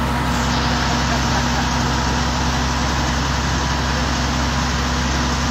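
Truck's diesel engine idling steadily at close range.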